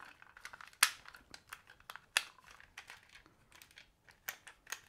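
Scattered sharp clicks and light knocks of hard plastic as a vintage 1980s M.A.S.K. Raven toy car is handled and its movable parts worked, with a cluster of clicks near the end.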